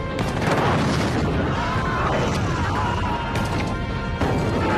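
War-film battle sound: a field gun firing and several heavy blasts and explosions in a dense, continuous din, with film music underneath.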